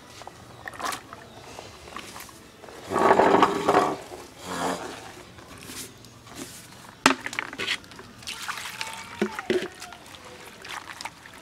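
Cut arum stalks being handled and tipped from a plastic basket into a plastic bowl, then hands swishing them in water near the end, with light clicks and slosh. About three seconds in, a loud call, the loudest sound here, stands out briefly.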